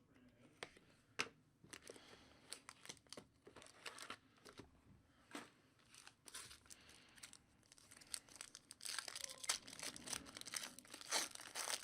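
Hockey card pack wrapper being torn open and crinkled, with the cards shuffled out by hand: scattered crackles that grow busier and louder in the last few seconds.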